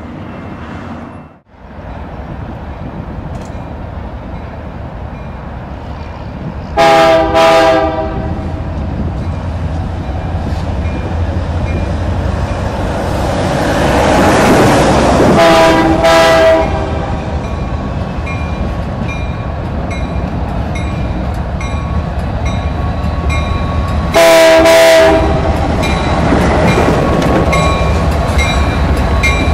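Union Pacific freight train with diesel locomotives passing close by, its engine and rail noise swelling as it nears, while the locomotive's multi-chime air horn sounds a pair of short blasts and then two longer ones. A level-crossing bell rings steadily in the second half.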